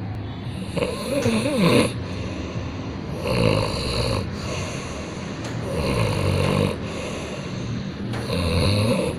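Water buffalo snoring: four long snores, about two and a half seconds apart.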